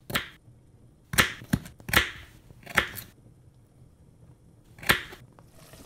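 A series of about eight sharp, short percussive hits, irregularly spaced, with quiet between them: sound effects laid over an animated title.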